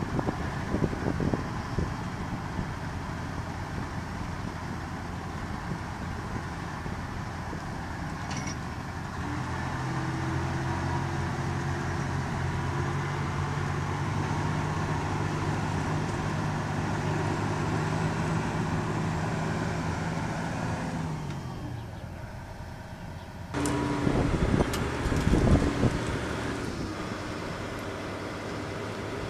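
Diesel engine of a John Deere 9410R articulated tractor working under load as it tows a loaded grain truck with caged brakes up out of a soft field. The engine settles into a steady, louder drone about a third of the way in and drops away about two-thirds through. Loud knocks and bumps on the microphone follow near the end.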